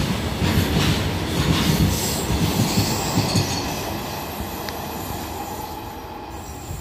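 Loaded BOXN freight wagons rolling past, their wheels clattering in a rhythm of low thumps over the rail joints. The rumble then fades steadily as the brake van at the tail goes by and the train moves away.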